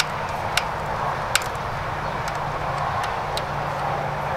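Hand screwdriver driving a wood screw into a wooden cage frame, giving a few sharp, irregularly spaced clicks over a steady background hiss.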